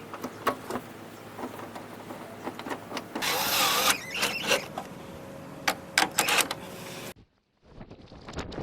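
Clicks and knocks of the plastic grille and its push-in tabs being fitted back onto a pickup's front end, with a brief loud noisy burst a little past three seconds in. The sound cuts out just after seven seconds, then a few more clicks.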